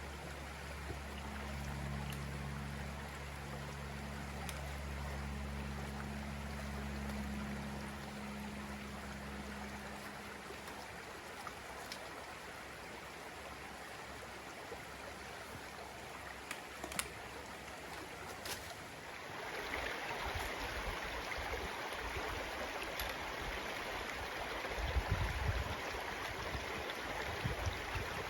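Steady rush of a mountain creek's running water. It grows louder and brighter about two-thirds of the way through, with a few low bumps on the microphone near the end.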